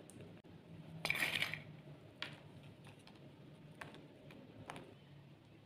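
Sliced almonds sprinkled by hand onto a ceramic platter: a short rustle about a second in, then a few faint, separate clicks as pieces land.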